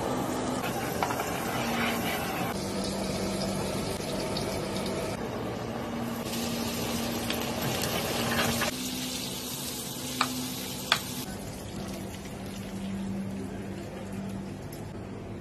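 Butter sizzling and foaming in a frying pan, then whole octopus tentacles frying in the hot butter, a steady crackling hiss that changes from shot to shot. Two sharp clicks come past the middle, over a faint low hum.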